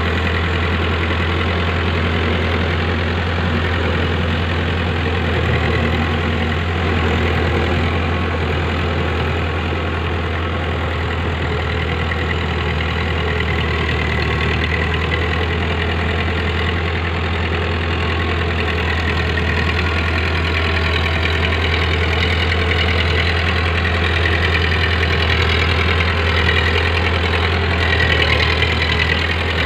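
Powertrac Euro 55 tractor's diesel engine running steadily as it drives a rotavator through flooded paddy mud. The engine grows a little louder near the end.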